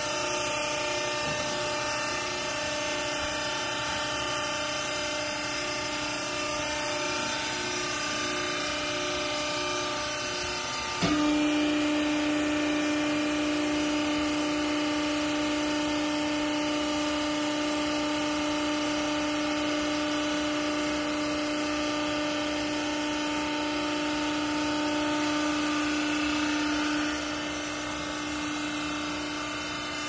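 Vertical hydraulic baler's power unit running with a steady motor-and-pump hum. About eleven seconds in it suddenly gets louder with a strong steady low tone, which holds until near the end, when it drops back to the quieter hum.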